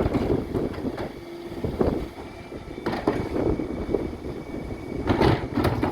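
Refuse truck running at the kerb during a bin collection, a steady diesel rumble with several sharp knocks and clatters, the loudest near the end.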